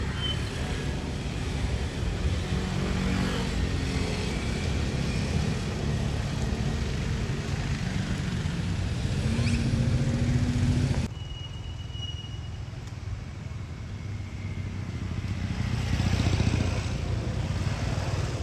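Motor vehicle engines running nearby as a steady low rumble, with one engine's note rising about ten seconds in. The sound drops abruptly to a quieter rumble about eleven seconds in, then builds again near the end.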